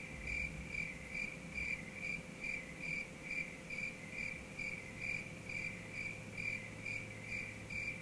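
Electronic beeping: one short, high chirp repeated evenly about two and a half times a second.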